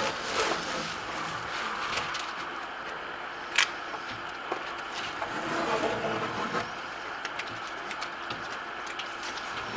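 Blue painter's tape being peeled off the edges of a plastered board: a steady scratchy tearing with small crackles, and one sharp click about three and a half seconds in.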